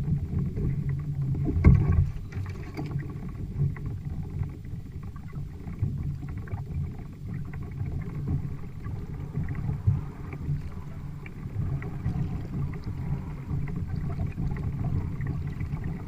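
Water sloshing and knocking against a kayak's hull on the open ocean, an irregular low rumble with a louder knock about two seconds in.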